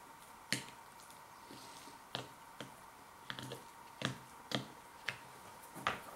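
Eating sounds: about nine sharp, irregular clicks as a metal fork picks dressed crab meat out of the shell and the food is chewed.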